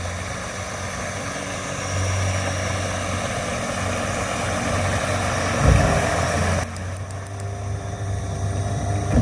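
Boat motor running steadily, a low even hum. There is a short low thump about six seconds in.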